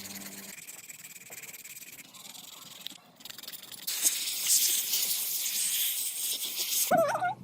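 A loud steady hiss starts about four seconds in, lasts about three seconds and cuts off sharply. A short warbling whistle sounds just before it ends.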